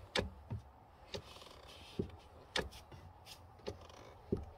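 Clutch pedal of a 2010 Audi S4 pushed down and let back up by hand, giving about seven sharp clicks and knocks at uneven intervals. This is a check that the freshly bled clutch hydraulics have pedal pressure again.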